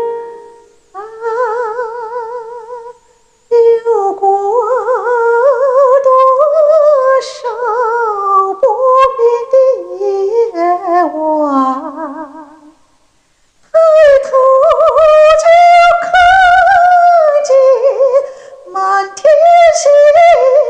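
A woman singing a slow Mandarin ballad solo, with vibrato on the held notes. She breaks briefly for breath about three seconds in and again around thirteen seconds, and sings with the relaxed, open mouth shape she has just taught.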